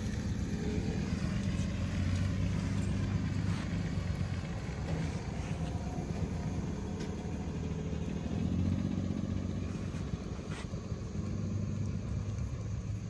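Flatbed tow truck's engine running with a steady low rumble that swells for a moment about two-thirds of the way through.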